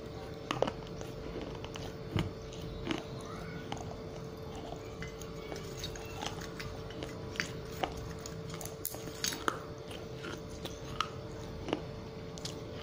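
Crunching and chewing of broken fired clay (diya and clay-pot pieces) in the mouth: sharp, irregular crunches, roughly one a second, over a faint steady hum.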